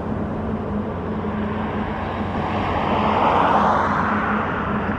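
Steady low drone of a passing ro-ro cargo ship's machinery, with a rushing noise that swells up about three seconds in and fades again.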